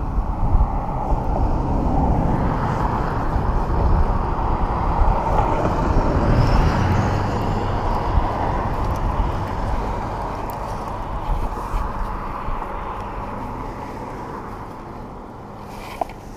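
Steady rumble of a boat's engine mixed with a rush of wind and water, with a faint hum running through it; it grows gradually quieter over the last few seconds, and a single sharp click comes near the end.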